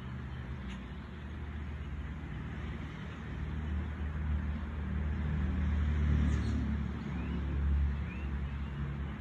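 Low rumble of a motor vehicle's engine, building over several seconds to a peak and then easing, as of a car passing. A few faint short chirps are heard near the end.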